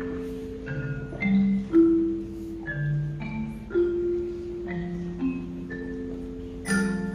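A school pitched-percussion ensemble, led by glockenspiel-type bars, plays a Christmas tune note by note over held, ringing low notes. Jingle bells come in near the end.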